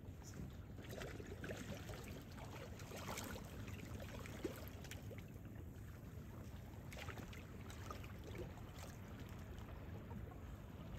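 Faint water lapping and dripping around a kayak on calm water, small scattered drips over a steady low rumble.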